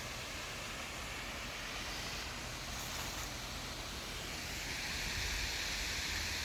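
Steady rushing of running water from a waterfall and stream, growing a little louder about five seconds in.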